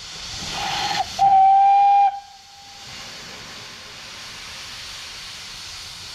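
Whistle of an 0-6-0 saddle-tank steam locomotive: a short blast about half a second in, then a longer, louder steady blast that dies away around two to three seconds in, sounded as the train readies to depart. Steam hisses throughout.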